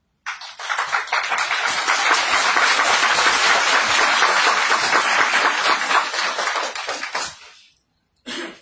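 Audience applauding, starting suddenly and dying away after about seven seconds.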